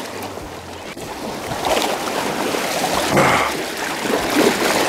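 Water splashing and sloshing around shoreline rocks as a hooked sturgeon thrashes in the shallows, with a few louder irregular splashes.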